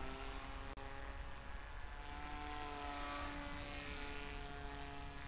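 Distant electric motor and propeller of a radio-controlled model paramotor, a steady hum whose pitch wavers slightly.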